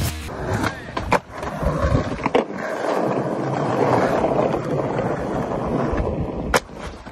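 Skateboard wheels rolling over stone paving, with a few sharp clicks and one loud clack about six and a half seconds in as the rider jumps the stair rail.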